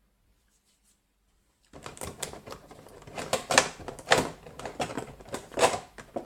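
Packaging being handled, a taped-in accessory being worked at: a run of irregular clicks and crackles that starts about two seconds in.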